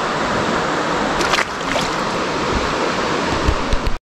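Running river water, a steady loud wash of noise with no distinct events, cutting out abruptly at the very end.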